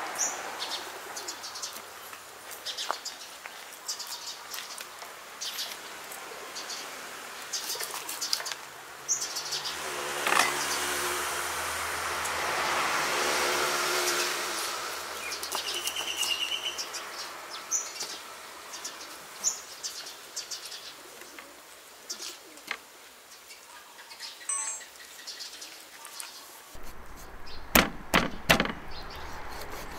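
A knife and cleaver cutting up a whole raw chicken on a wooden chopping board: scattered knocks and cuts, with a few loud, sharp chops near the end. Birds chirp in the background, and a rushing noise swells and fades midway.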